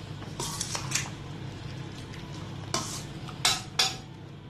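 A spatula stirring chicken in a thick masala in a metal kadai, with a few short scrapes against the side of the pan, about half a second in and again in a quick cluster around three to four seconds.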